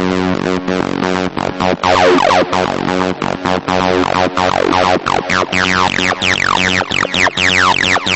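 Electronic background music with a steady beat and repeated falling synth glides.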